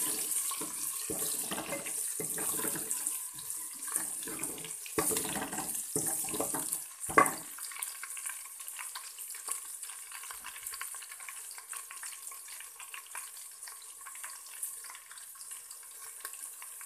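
Onions, ginger and green chillies frying in oil in an aluminium pot, a steady sizzle as the onions are browned. For the first seven seconds or so a ladle scrapes and knocks against the pot as it stirs, with a sharp clank about seven seconds in; after that the sizzle goes on alone, fading slightly.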